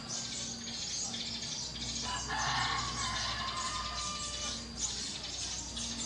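Birds chirping in the trees in a dense, continuous chatter, with a louder, longer call about two seconds in.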